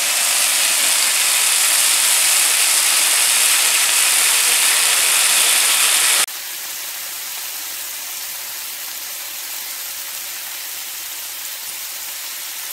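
Thick-cut smoked bacon strips sizzling on a hot electric griddle's ceramic-coated surface set to 425°F: a steady frying hiss that drops suddenly to a quieter sizzle about six seconds in.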